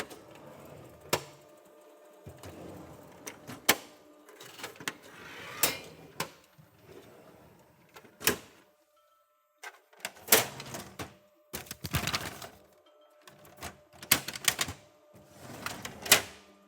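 Xerox multifunction printer working: a string of sharp mechanical clicks and clunks mixed with short whirring runs over a faint steady hum, stopping briefly about halfway and then starting again.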